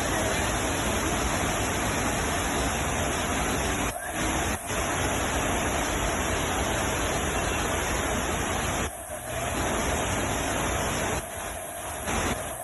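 A steady, loud rushing noise that drops away sharply a few times: about four seconds in, around nine seconds, and for about a second near the end.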